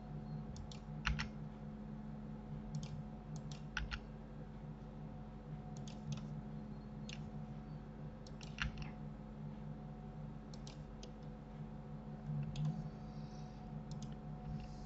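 Irregular, scattered clicks of a computer mouse and keyboard over a steady low hum.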